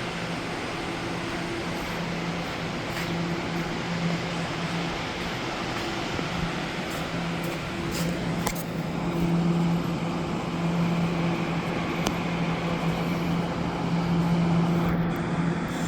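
Taiwan Railway EMU800 electric train running with a steady hum carrying a low steady tone, growing a little louder in the second half, with a few faint clicks.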